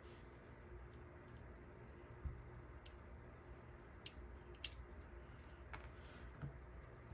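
Faint, scattered small clicks and taps of tiny lock pins and springs being handled and set down while a dimple lock is taken apart, over a low steady hum.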